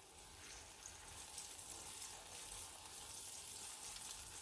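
Flour tortilla coated in birria fat frying in a pan of peanut oil over medium-high heat: a faint, steady sizzle.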